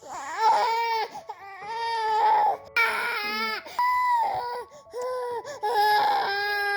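A seven-month-old baby boy crying in a run of about six wails, each up to a second long, with short catches of breath between them.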